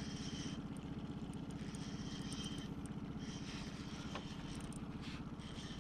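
Motorboat engine running steadily at an even speed, with a high hiss coming and going over it.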